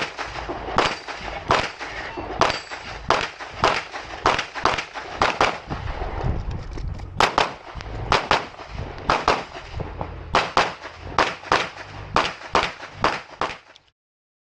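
Open Division competition pistol firing rapid shots during an IPSC stage, mostly in quick pairs (double-taps on each target) with brief pauses between groups, about twenty shots in all. The sound cuts off suddenly near the end.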